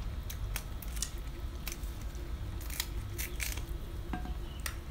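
Close-up eating sounds: irregular sharp crackles and clicks from chewing and from hands tearing crisp raw cabbage and leaves, over a low steady background rumble.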